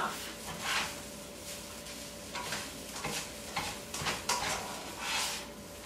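Fried rice being stirred and turned in a frying pan with a utensil: irregular scraping strokes against the pan over a light sizzle.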